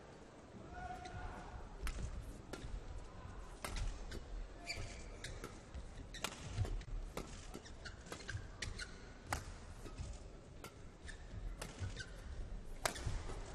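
Badminton rally: rackets striking the shuttlecock in sharp, irregular cracks, roughly one every second, with the players' shoes squeaking on the court.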